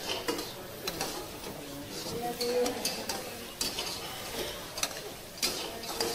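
Stir-frying pad thai noodles in a pan: a utensil scraping and clinking against the pan in irregular strokes while the food sizzles.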